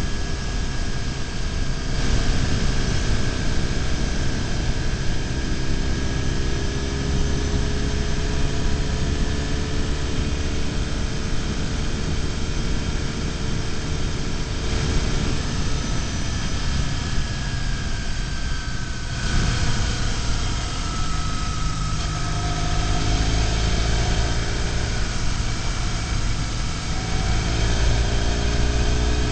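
BMW R1150GS Adventure's boxer-twin engine running under way at road speed, mixed with steady wind rush on the bike-mounted microphone. The engine pitch sags slowly through the first half and climbs again near the end as the speed changes.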